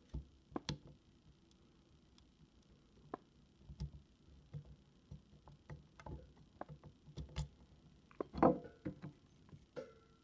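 Lock picks working the pins of a Mul-T-Lock Interactive cylinder: faint, irregular clicks and light scrapes, with a louder scraping rattle about eight seconds in.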